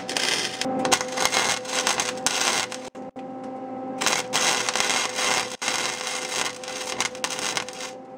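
Wire-feed welder arc crackling and sizzling as it lays weld beads around a steel exhaust pipe joint, in several runs with short breaks between them.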